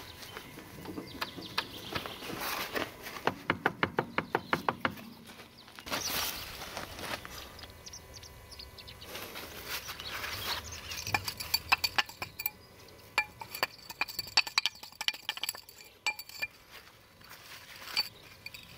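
Metal parts and hand tools clinking and clicking against each other while tractor front-axle parts are handled. A quick, even run of clicks comes a few seconds in; later there is a scatter of sharp metallic clinks that ring briefly.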